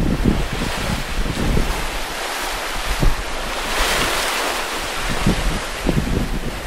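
Waves rushing past the hull of a sailing yacht under way in a rough sea, with wind buffeting the microphone. The sound swells into a louder rush about four seconds in.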